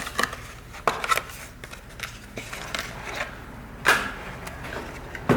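A few sharp plastic and metal clicks and knocks from an SSD and laptop drive bracket being handled and fitted together, the loudest about four seconds in.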